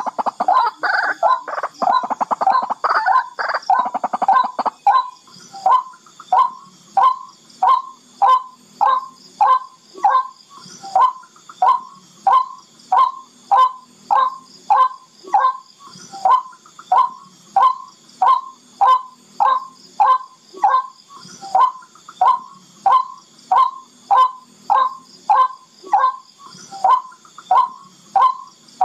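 Barred rail (tikling) calling: a fast, dense chatter of overlapping notes for the first few seconds, then a steady series of short harsh notes, about three every two seconds.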